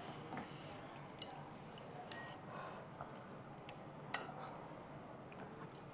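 Chopsticks and utensils clinking now and then against ceramic bowls and the hot pot: a few sharp clinks, the loudest about a second in, and one about two seconds in that rings briefly.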